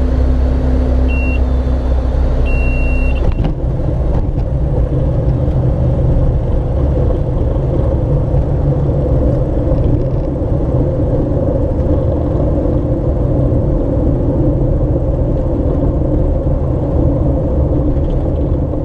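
Socata TB-9 Tampico's piston engine and propeller droning inside the cockpit. Two short high beeps come in the first few seconds. About three and a half seconds in, the engine note changes, then runs steadily.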